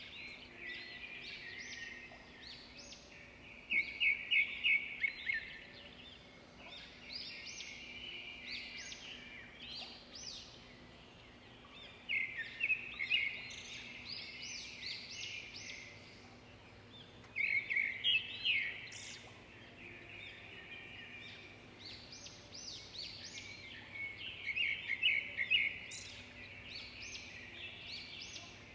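Birdsong: a songbird chirping in bursts of rapid trills every few seconds, over a faint steady hum.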